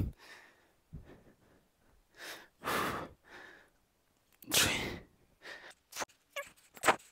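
A man breathing heavily in loud, separate breaths while doing shoulder push-ups, followed near the end by a quick run of short clicks and squeaks.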